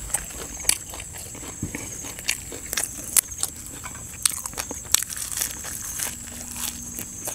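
Close-up eating sounds: a man picking food off the plate and biting and chewing a mouthful of fresh raw greens. The crunches and mouth clicks come sharp and irregular.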